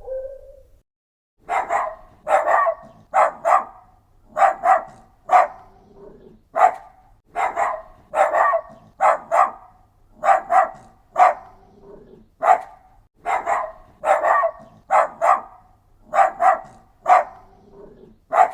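A dog barking over and over: short sharp barks, often in quick pairs, about one to two a second, starting about a second and a half in.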